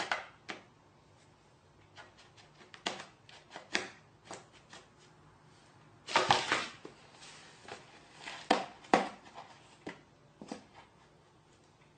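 Irregular light knocks and clicks, with a louder scraping rustle about halfway and two sharper knocks a couple of seconds later.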